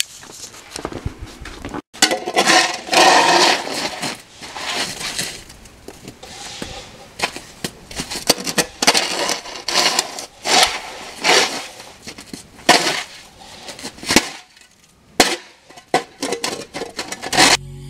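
Snow shovel scraping and pushing wet, slushy snow across an asphalt driveway in repeated, uneven strokes.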